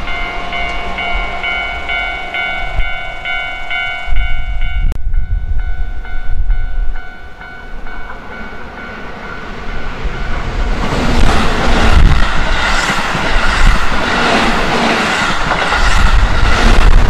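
A level-crossing alarm bell rings in an even, repeating ding that is cut off about five seconds in. Then a Keihan 3000 series electric train approaches and passes close, growing loud from about eleven seconds, with regular wheel clacks over the rail joints.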